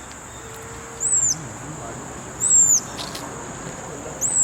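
Baby squirrel monkey giving three loud, short, high-pitched peeps about a second and a half apart, each rising then falling. A steady high insect drone runs underneath.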